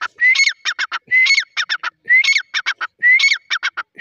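Grey francolin (dakhni teetar) calling loudly. The same phrase repeats about once a second: a rising note followed by a quick run of four or five short, sharp notes.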